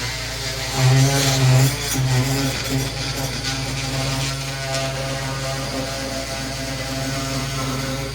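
Electric power tool motor running steadily with a buzzing hum, louder for about a second near the start, as the crew cuts to fit the countertop against the wall.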